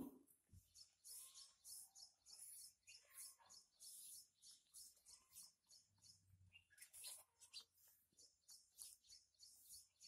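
Rooster pecking raw rice grains off a concrete floor: a steady run of quick, light taps of its beak, about three a second.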